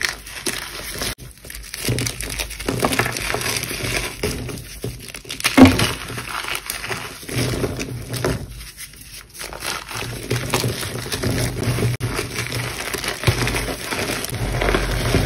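Chunks of gym chalk crushed and crumbled between the fingers and palms: dense, uneven crunching and crackling with a sharp loud crunch about five and a half seconds in.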